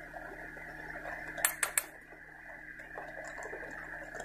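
Metal pot lid clinking twice against a small saucepan as it is lifted to check simmering rice, over the steady hum of a vehicle exhaust fan.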